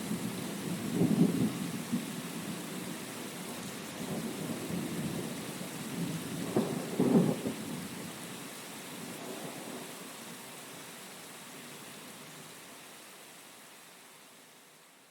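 Heavy thunderstorm: steady heavy rain with rolling rumbles of thunder, the loudest peals about a second in and about seven seconds in. The whole storm fades out over the last few seconds.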